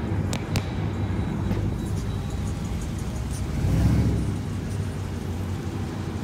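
Car engine idling with a steady low rumble that swells briefly about four seconds in. Two sharp clicks come about half a second in.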